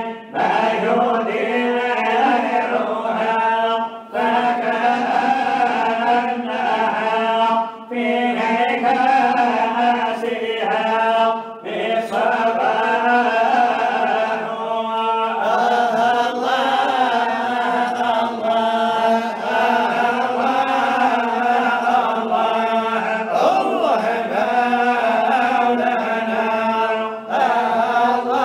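Unaccompanied male voices chanting a Sufi samaa qasida into a microphone: long, drawn-out melodic phrases with ornamented held notes, broken by a short breath about every four seconds.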